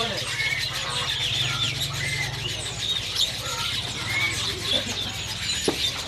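Many caged songbirds chirping and whistling in short, overlapping calls, over a steady low hum.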